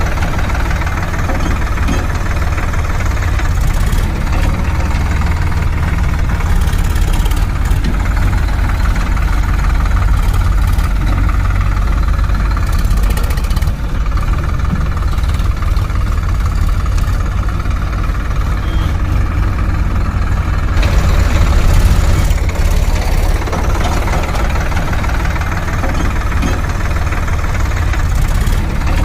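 Heavy diesel machinery engine running steadily, with a deep low chug; it gets a little louder about 22 seconds in.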